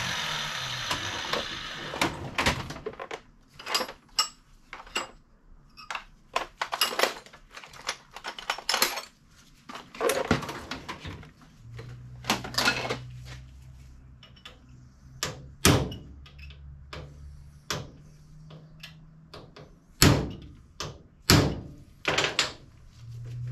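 An angle grinder spinning down in the first second. Then a long series of separate metal knocks, clinks and clatter as tools and roller chain are handled on a steel tool chest, a drawer opened and closed among them. A low hum comes in for several seconds in the middle and again near the end.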